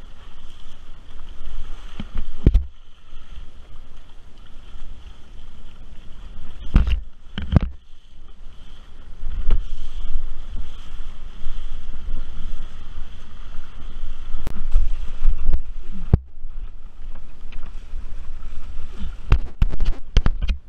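Wind buffeting the microphone of a camera held at an inflatable wingfoil wing above the water, a heavy steady rumble with water washing beneath it. Several sharp slaps break through at intervals, several close together near the end, as the wing and water knock about.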